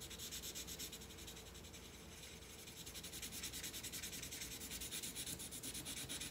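A pencil or crayon colouring on paper in quick, even back-and-forth strokes: a steady scratchy rubbing while a dark area is shaded in.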